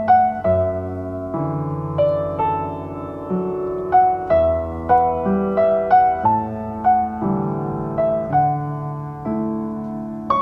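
Slow, gentle solo piano: single melody notes struck about twice a second over sustained chords, an instrumental break in a ballad.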